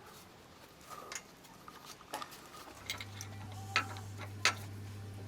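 Scattered light metallic clicks and clinks, as of tools or small parts being handled, the two sharpest near the end. A steady low hum starts a little over halfway through.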